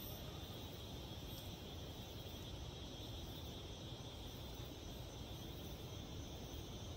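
Faint, steady chorus of insects, a thin, high continuous trilling, over a low rumble.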